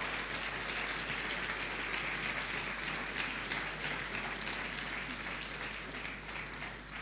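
A congregation applauding: many hands clapping at an even level, tapering off slightly near the end.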